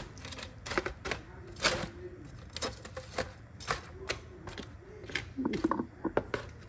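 Sharp, irregular clicks and knocks, about two a second, of chicken wings being tossed in sauce in a pan.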